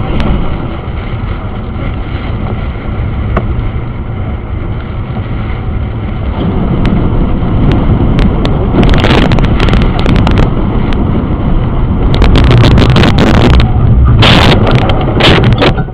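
Loud storm wind buffeting the microphone, a continuous roar that grows stronger about six seconds in, with repeated crackling gusts.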